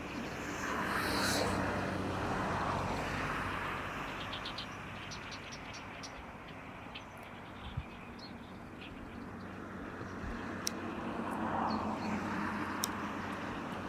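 A passing motor vehicle: a broad rushing noise that swells and fades early on, then builds again near the end. A few faint, short high chirps sound in between.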